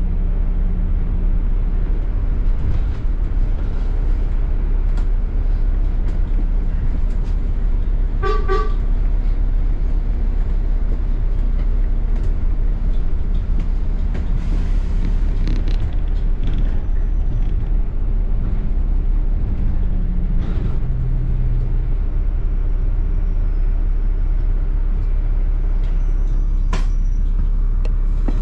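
Double-decker bus heard from on board: a steady low engine rumble with road noise and small rattles, and a short pitched toot about eight seconds in.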